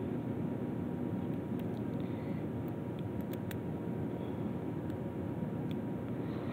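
Steady low droning noise with a faint hum, like a fan or room machinery, with a few faint light clicks scattered through it.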